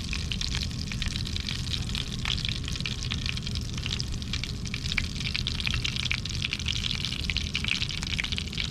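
Cooking fat crackling and spitting over high heat before the fish go in, a dense patter of small pops over a steady low rumble.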